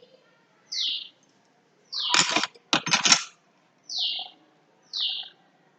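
A bird chirping: a short high note that falls in pitch, repeated about once a second. About two to three seconds in come two louder, harsher noises.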